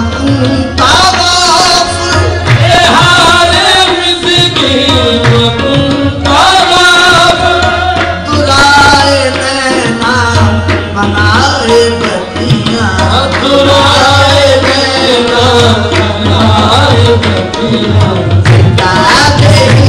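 Qawwali music: singing over a steadily beating tabla accompaniment.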